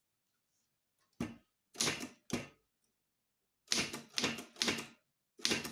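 Manual typewriter keys struck one at a time, about seven separate clacking strokes, the first about a second in and the rest in two uneven groups, as a word is typed letter by letter.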